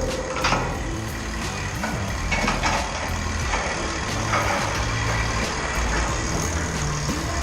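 Heavy construction machinery running steadily on a steel-erection site, most likely the crane's engine, with a few short knocks.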